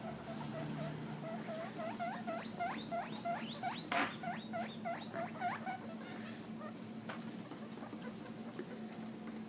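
Guinea pig squeaking in a rapid run of short calls, about three or four a second. From about two seconds in the calls turn into sharp upward sweeps, and they die away about six seconds in. A single knock sounds about four seconds in.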